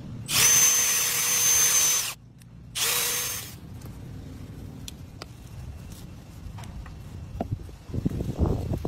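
Power drill drilling into the rib bone of a tomahawk steak, running in two bursts: a steady whine of about two seconds, then a shorter one after a brief pause. A short rustle comes near the end.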